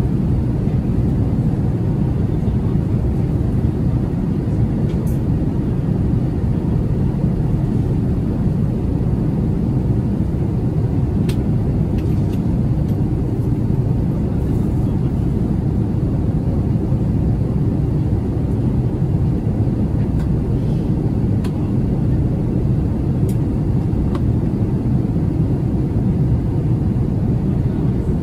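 Steady cabin noise of an Airbus A380-800 climbing after takeoff, heard from inside the cabin: an even low rumble of airflow and engines, with a few faint clicks.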